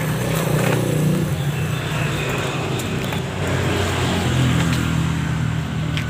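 A motor engine running with a steady low hum.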